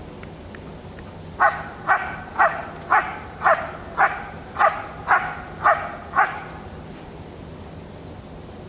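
German Shepherd dog barking ten times in a steady rhythm of about two barks a second, then falling silent. This is the bark-and-hold at a protection-training helper.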